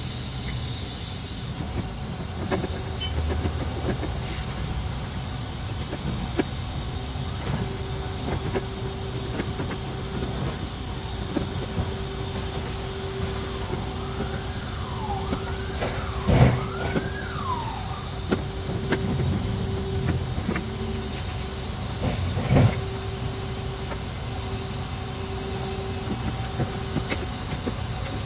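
Metal clunks and clicks from hands working a window motor and regulator inside a pickup's bare steel door, over a steady shop hum. The two loudest knocks come about halfway and about three-quarters of the way through, with a few short rising-and-falling squeaks around the middle.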